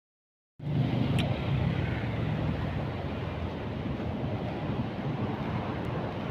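Steady city road traffic noise with wind buffeting the microphone, starting abruptly about half a second in; a low engine hum is strongest in the first two seconds.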